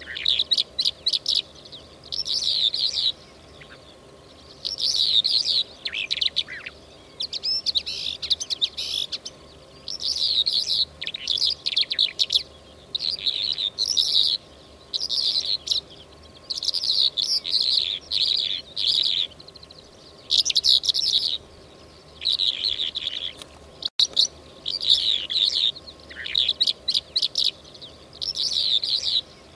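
Lark song, the call hunters use as a lure for the 'mutawwaq' lark: repeated phrases of rapid high chirps and trills, each about one to two seconds long, with short pauses between them.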